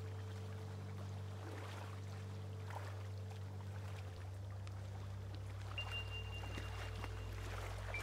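Small lake waves lapping and splashing on a pebble shore, over a soft ambient music track of long, steady low notes; a high held note comes in near the end.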